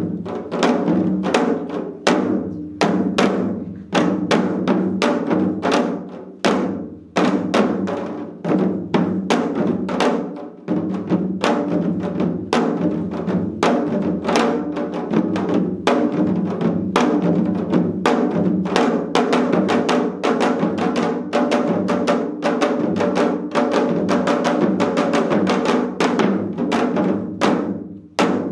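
Four janggu, Korean hourglass drums, played together in a seoljanggu piece: a fast, dense run of sharp drum strokes that briefly thins out about seven and ten seconds in.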